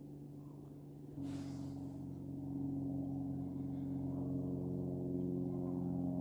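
Ambient music: low sustained drone tones layered at several pitches. A stronger tone enters about a second in and the sound slowly swells.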